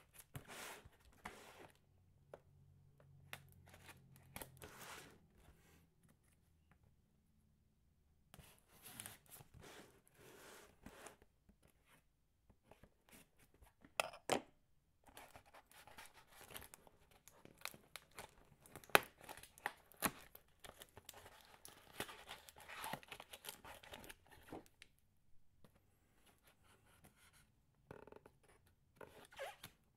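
Knife slitting the packing tape along the top of a cardboard box, then the cardboard flaps being pulled open. Faint, intermittent scraping and tearing, with short pauses and a couple of sharp clicks in the middle.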